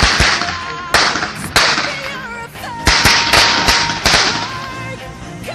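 Consumer fireworks going off on the ground: a rapid run of sharp bangs, each trailing a crackling hiss, about eight in the first four seconds, then dying down.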